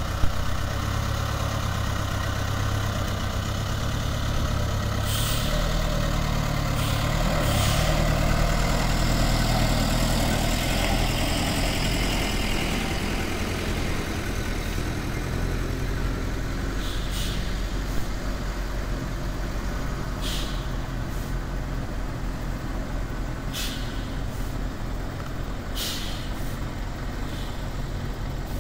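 Diesel engine of an old Volvo city bus running at low speed as the bus creeps forward, with short, sharp air hisses from its air-brake system about seven times.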